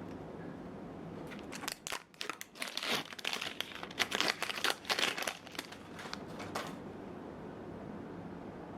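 Crinkling and rustling of packaging wrap being handled, in irregular bursts from about a second in until nearly seven seconds, then only room tone.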